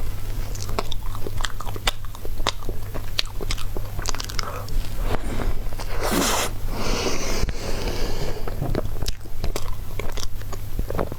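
Close-up mouth sounds of someone biting and chewing crepe towel-roll cake: many short wet clicks and smacks at an uneven pace, over a steady low hum.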